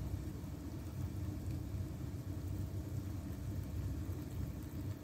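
Hot water poured in a steady stream into a paper cup of instant noodles, a continuous low rumbling pour as the cup fills.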